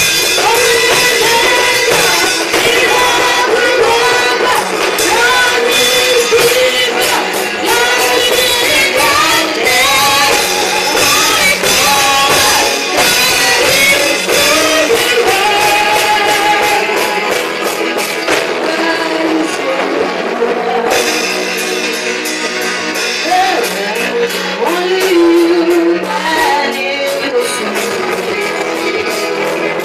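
Gospel song sung live by a woman into a microphone, with instrumental backing and a steady run of percussion hits.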